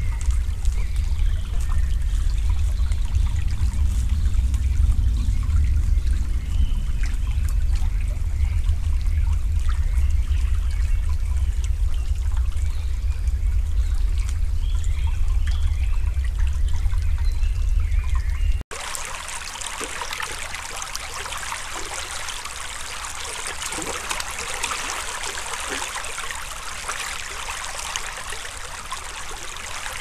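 Small forest stream trickling and burbling. For the first two-thirds there is a strong low rumble under it with faint chirps; after a sudden change it becomes a brighter, even hiss of running water with small clicks.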